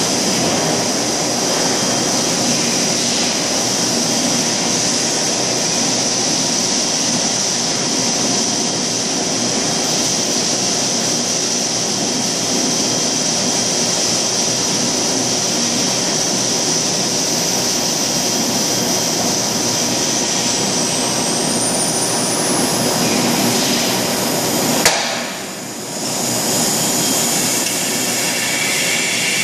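Plastic blow-moulding machine running: a steady loud hiss and hum with a high whine on top. Near the end a sharp clack, after which the noise drops for about a second and then builds back up.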